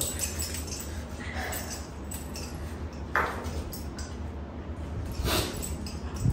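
A low steady hum with a few soft, brief scrapes and light clinks from hands on steel plates; one broader rustling noise comes about five seconds in.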